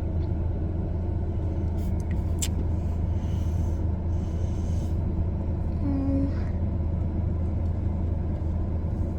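Steady low engine rumble, unchanging throughout.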